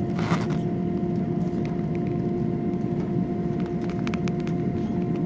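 Airbus A321-200 cabin noise at a window seat over the wing: the jet engines running with a steady hum and two steady tones. There is a short hiss near the start and a few faint clicks about four seconds in.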